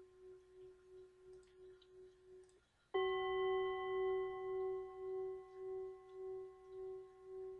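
Tibetan singing bowl ringing with a slow wah-wah beat. The tone stops abruptly about two and a half seconds in. Half a second later a bowl is struck, louder, and its low tone and several higher overtones ring on, pulsing and slowly fading.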